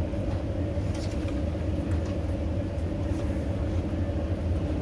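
Steady engine drone, low and unchanging, with a constant hum and no revving.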